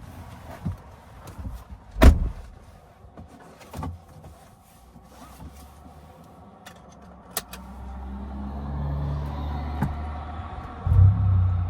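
A car door thumps shut about two seconds in, followed by a few light clicks. Then, in the last seconds, the Mercedes-Benz C250 (W205) engine starts, building up and catching with a loud surge near the end.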